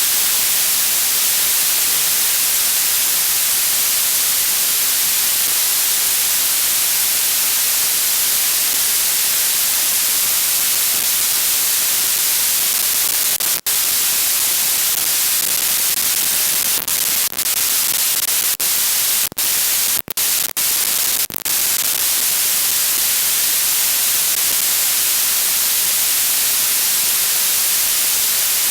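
Steady loud hiss of static from an analog FPV video receiver's empty audio channel. It is broken by brief dropouts, one about halfway through and several more over the next eight seconds.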